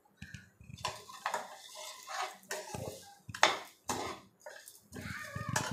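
A perforated steel skimmer scraping and stirring split black urad dal around a stainless steel kadai: uneven metal-on-metal scrapes with the lentils rattling, about two strokes a second. The freshly washed dal is still damp and drying out as it roasts.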